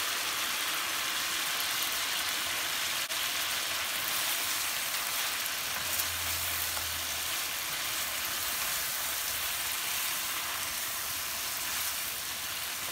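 Chicken pieces sizzling steadily in oil in a pan over a high gas flame, with a spoon stirring them near the end.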